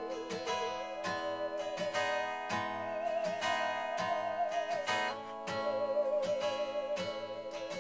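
Acoustic guitar strummed in a steady rhythm, about two strokes a second, under a sustained wavering melody with vibrato that slides up a few seconds in and back down, played on a saw, with held chords beneath.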